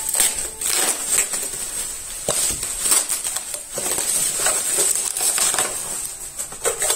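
Plastic bubble wrap crinkling and rustling in irregular crackles as a parcel is unwrapped by hand.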